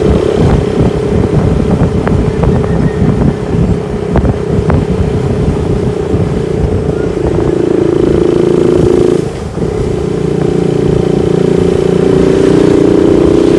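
Steady engine and road noise of a car driving along a highway, heard from inside the car, with a rough low rumble that dips briefly about nine seconds in.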